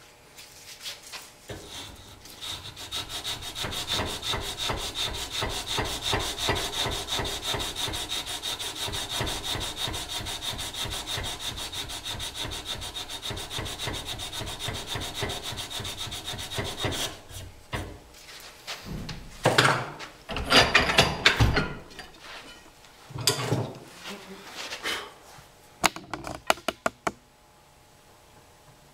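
A wooden longbow tenon being filed by hand with sandpaper wrapped around a file: rapid, steady back-and-forth rasping strokes that stop about seventeen seconds in. A few scattered knocks and handling clatter of the work and tools follow.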